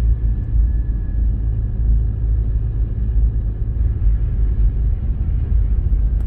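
A car driving slowly on wet streets, heard from inside the car: a steady low rumble of engine and road.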